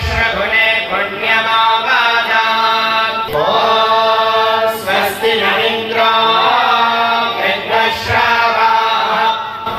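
Group devotional chanting (kirtan) of voices over a steady held note, continuing without a break.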